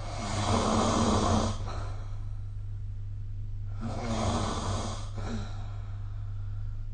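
A sleeping person snoring: two snores about three and a half seconds apart, each lasting roughly a second and a half, with quiet breathing between them.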